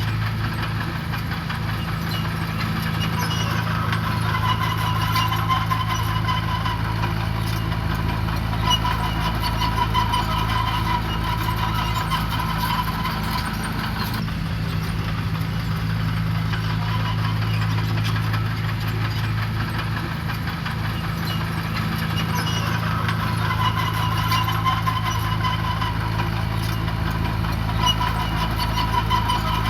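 Diesel engine of a heavy construction machine running steadily, with a higher whine that swells and fades a few times.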